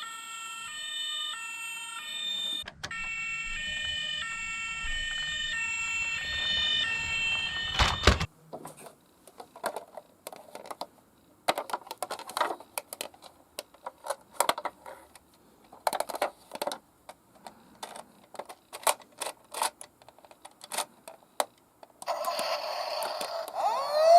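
A toy emergency vehicle's electronic siren alternates between tones in even steps for about eight seconds, with a low rumble joining after a few seconds, then cuts off with a loud knock. Scattered clicks and knocks of small toy cars follow, and near the end another toy siren starts with a rising wail.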